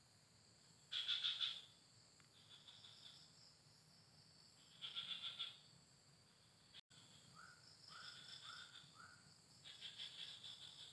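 Crickets chirping in short pulsed bursts, three loud ones a few seconds apart, over a steady high insect drone. A few faint short rising chirps come in the middle.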